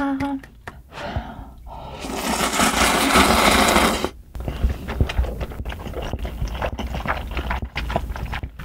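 A long, loud slurp of spicy ramen broth from a bowl, lasting about two seconds and cutting off sharply. It is followed by close-miked mouth sounds: small wet clicks and smacks as the broth is tasted and swallowed.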